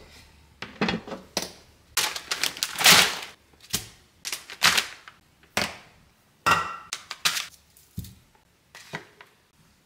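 Irregular knocks, thuds and crinkles of packaged ingredients being set down one after another on a kitchen counter, with a louder rustle of packaging about three seconds in.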